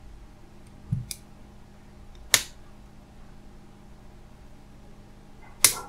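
Plastic housing of a Samsung mobile phone clicking as the frame is pressed back into place during reassembly: a soft knock about a second in, then two sharp clicks a few seconds apart.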